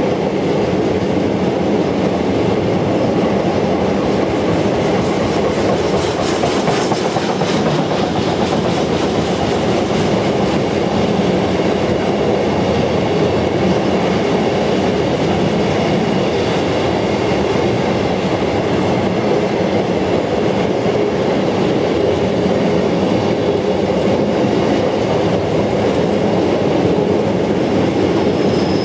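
Empty container flat wagons of a long freight train rolling past, their wheels clattering steadily over the rails.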